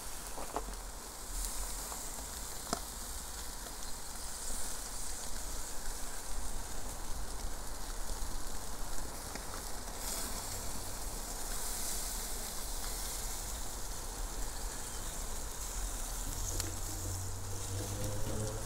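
Jerk chicken sizzling on a charcoal grill as it is brushed with a liquid basting sauce, a steady hiss with scattered small crackles.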